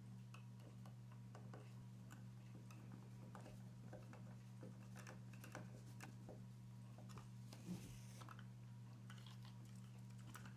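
Near silence: faint scattered clicks and taps of small parts being handled, over a steady low electrical hum, with one slightly louder knock about three quarters of the way through.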